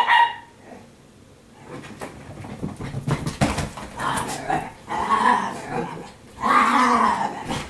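Italian greyhounds vocalizing: one sharp yip right at the start, then a run of uneven whining and grumbling noises that grow louder toward the end.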